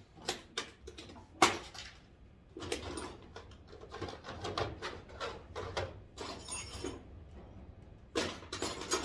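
Irregular clicks, knocks and rattles of hand work on plastic trim and clips with a pair of pliers, the sharpest knock about a second and a half in.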